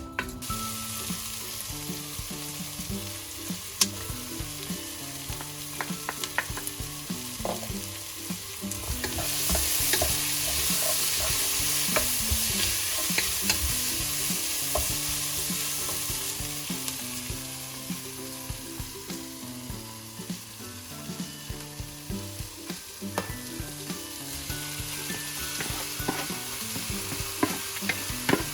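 Chicken cashew stir fry sizzling in a hot pan as it is stirred, with scattered sharp clicks of the utensil against the pan. The sizzle swells louder about a third of the way in and eases off again later.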